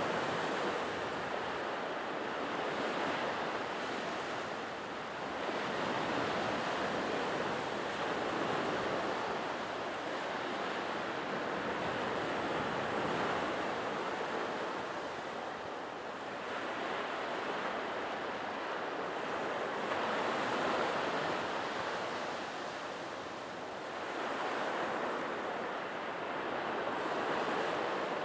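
Surf breaking on a sandy beach: a steady rushing wash that swells and eases every few seconds as waves come in.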